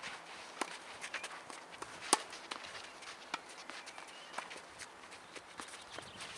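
Clay-court tennis rally: footsteps scuffing on the clay court, with a sharp pop of the tennis ball about two seconds in and another at the very end.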